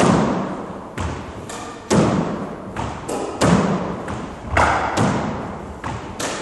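Squash ball being hit with rackets and rebounding off the court walls: sharp smacks about two a second, each echoing around the enclosed court.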